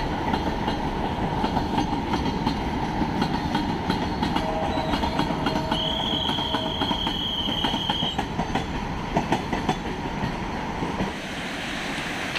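Train running along the track, its wheels clacking rapidly over the rails, with a high wheel squeal for about two seconds midway. The clatter fades about a second before the end, leaving the steady rush of the waterfall.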